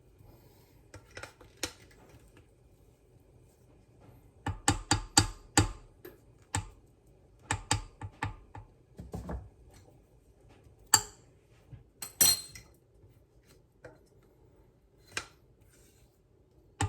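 A kitchen utensil scraping and knocking against a pot while thick melted chocolate is scooped out. There is a quick run of knocks about four and a half seconds in, scattered taps after that, and a sharp ringing clink around twelve seconds.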